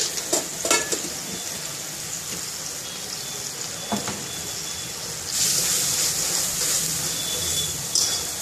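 Ginger-garlic paste and ground spices sizzling in oil in a wok as the masala is fried down, with a couple of short clicks near the start. About five seconds in the sizzle grows louder as the paste is stirred with a metal spatula.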